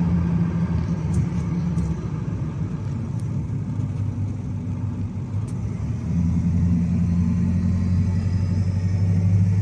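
Engine and road noise of a pickup truck heard from inside the cab while driving, a steady low drone that grows a little louder about six seconds in.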